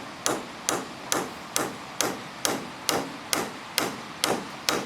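Hammer blows in a steady rhythm, about two strikes a second, each a sharp crack.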